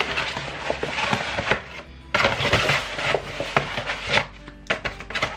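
Brown kraft-paper mailer crinkling and rustling as it is handled and torn open, a dense run of crackles with a short lull about two seconds in.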